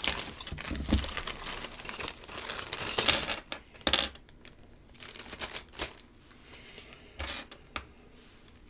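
A clear plastic bag crinkling as it is handled and opened. This is followed by a few separate sharp clicks of small hard plastic toy parts being picked out and set down, about a second or two apart.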